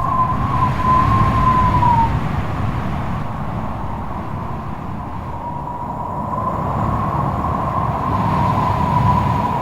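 FPV drone's motors whining at a single wavering pitch that dips and fades out about two seconds in, then comes back a few seconds later and rises slightly near the end, over a steady low rushing rumble of wind and propeller wash.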